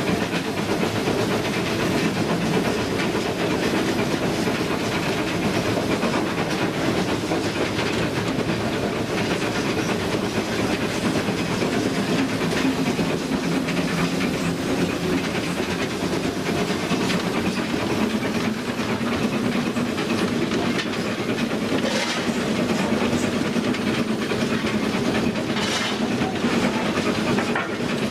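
Cab noise of GWR Hall class steam locomotive No. 6990 Witherslack Hall on the move: a steady mix of steam hiss, the engine working and wheels running on the rails. A few sharp clanks come in the last several seconds.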